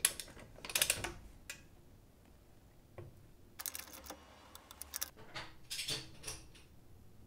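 Click-type torque wrench clicking off as it reaches the set torque of 80 foot-pounds on car lug bolts, in short clusters of sharp clicks with a few single ones. On the front bolts each one is given a double click.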